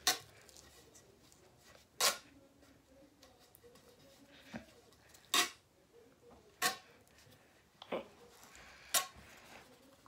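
Hockey tape being worked around the top of a mini hockey stick to build up a knob: a series of short, sharp snaps a second or so apart, with faint rustling between them.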